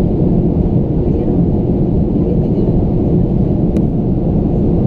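Steady cabin noise of a Ryanair Boeing 737-800 in flight on its approach: engines and airflow making an even, deep noise. A single faint click about four seconds in.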